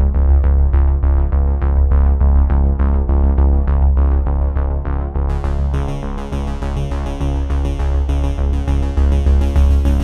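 Background electronic music with a steady synth beat and heavy bass; a brighter high layer comes in about halfway through.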